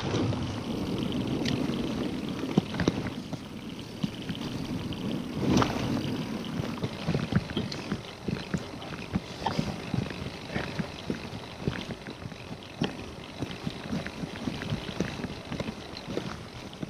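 Scott Genius LT 710 Plus mountain bike riding down a rough dirt trail: steady tyre and wind noise with frequent sharp clicks and knocks from the bike over bumps.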